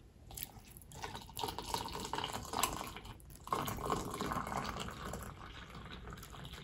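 Hot milk poured from a ceramic mug into a glass mug of cocoa powder, filling and overflowing it so that milk streams down the outside and splashes onto the wooden tabletop. The pour breaks off briefly about three seconds in, then carries on and fades.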